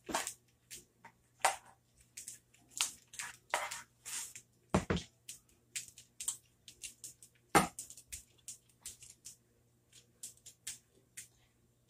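A spatula scraping and scooping thick, creamy chicken-and-cheese filling out of a mixing bowl onto a tortilla: a string of short, irregular scrapes, taps and soft squishes.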